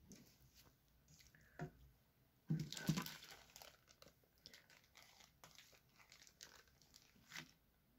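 Plastic food bags crinkling as they are handled, with a louder rustle about two and a half seconds in and small scattered crackles around it.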